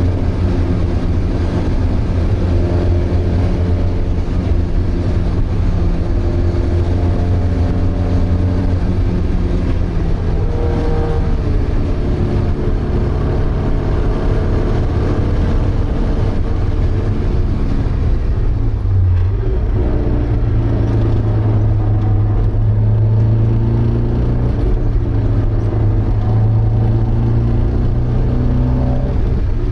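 Onboard sound of a Porsche 924's 2.0-litre four-cylinder engine under racing load. The engine note climbs in pitch again and again as it pulls through the revs, drops briefly about two-thirds of the way through, then holds a deep steady drone.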